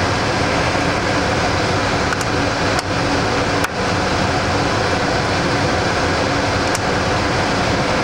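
Steady rushing of filtered air blowing through a class 100 clean room, with a few faint clicks.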